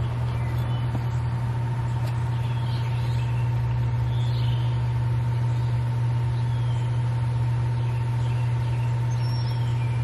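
Zoeller submersible sump pump running with a steady low hum, pumping down the flooded footer-drain pit now that its tripped GFCI has been reset. Faint bird chirps over it.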